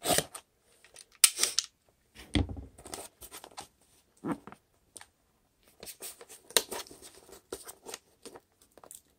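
Shipping label being worked off a cardboard box by hand: irregular short ripping, scraping and crinkling sounds with brief pauses between them.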